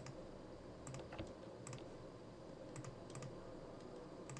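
Scattered clicks from a computer keyboard and mouse, about half a dozen, some in quick pairs, faint over a low steady hiss.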